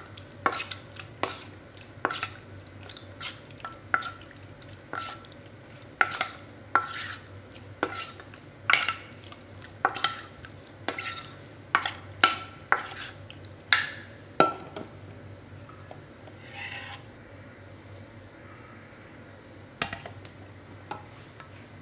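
A utensil stirring seasoned shrimp in a stainless-steel bowl, knocking against the metal with a brief ring at each stroke, about two knocks a second. The stirring stops about two-thirds of the way through, leaving only a few stray clinks.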